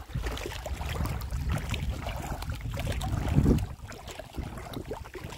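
Motorboat wake waves slapping and sloshing against a canoe's hull, over a low rumble that swells about three and a half seconds in and then drops away.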